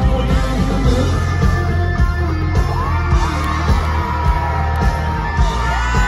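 Live amplified country band music filmed from within the crowd: a male singer over a steady, heavy drum beat and bass, with yells from the audience.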